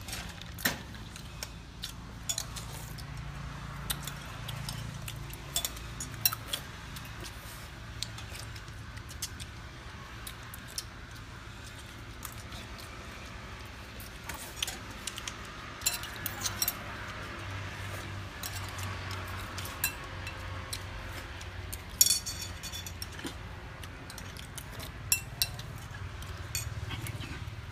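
Metal spoons clinking against ceramic bowls and plates: scattered sharp clinks throughout, with a quick run of several about 22 seconds in.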